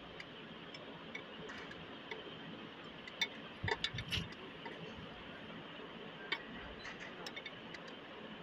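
Scattered sharp metal clicks and ticks, with a cluster of several about three to four seconds in, from a homemade puller drawing the cylinder sleeve out of a generator engine block.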